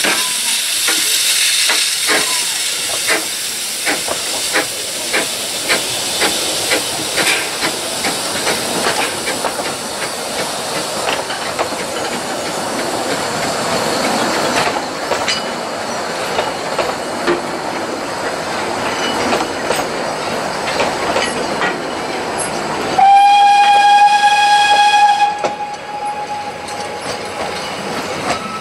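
A narrow-gauge steam tank locomotive and its train pulling away and passing. A loud hiss of steam at the start gives way to a regular clicking of wheels over rail joints as the coaches go by. Near the end comes one steam whistle blast, lasting about two seconds.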